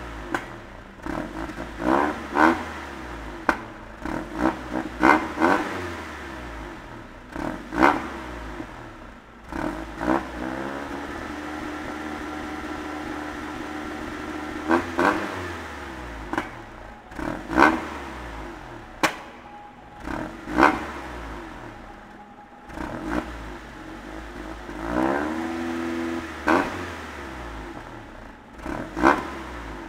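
Honda Civic EJ1's engine heard at the exhaust tailpipe, idling and blipped about a dozen times with quick throttle revs that rise and fall back to idle, with a longer steady idle in the middle. The blips are a failed attempt to make the exhaust pop and crackle on the overrun. The sound echoes off the concrete of an underground car park.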